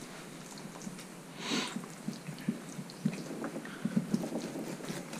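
Fillet knife cutting along a burbot's backbone and through its flesh on a wooden cutting board. A short scrape comes about one and a half seconds in, followed by a run of soft, irregular low taps.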